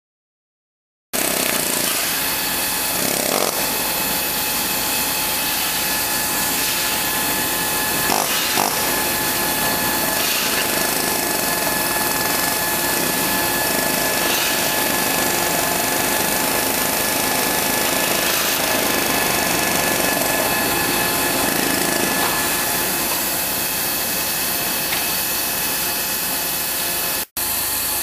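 Double-column CNC machining center milling metal with an indexable-insert face mill: a steady loud cutting noise with a thin high whine running through it. It starts about a second in and cuts out for an instant near the end.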